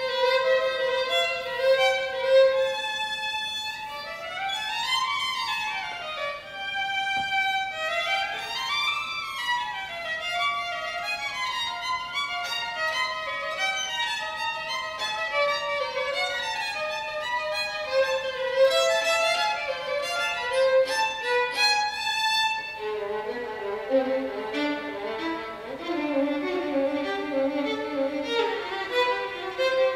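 A violin played with the bow in fast passages. Near the start there are two quick scale runs sweeping up and back down, and about three-quarters of the way through the melody drops to the lower strings.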